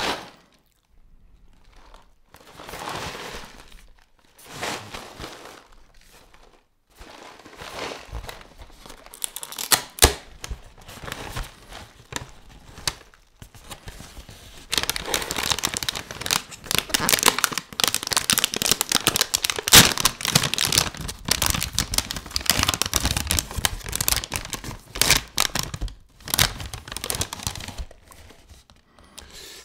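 Cereal packaging being opened and handled: cardboard tearing and the crinkling of the plastic inner bag. It starts with a few soft rustles, then turns into dense crackling that is loudest and almost unbroken through the second half.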